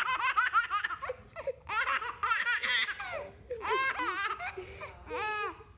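A baby laughing hard, in four bursts of quick, high, chopped laughs with short breaths between them.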